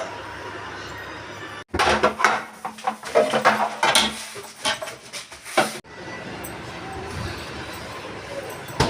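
Irregular clinking and clatter of dishes and containers being handled, starting and stopping abruptly about two seconds in and near the six-second mark, over a steady background hiss.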